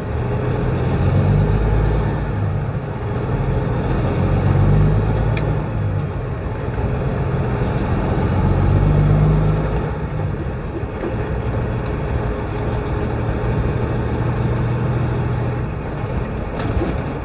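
Kenworth W900 semi truck's diesel engine running under way, heard inside the cab with road noise; the engine note swells and eases a few times as the truck pulls.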